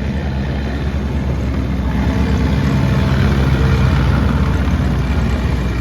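A heavy vehicle engine running as it goes by, growing louder to a peak about four seconds in and then easing off slightly.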